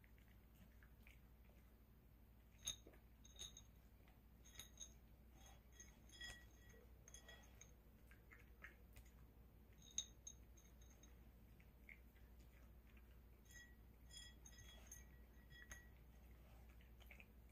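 Poodle eating dry kibble from a ceramic bowl: scattered sharp clinks of kibble and teeth against the bowl, with faint chewing.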